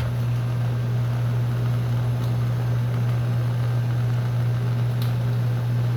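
Steady low hum with an even background hiss and a couple of faint ticks.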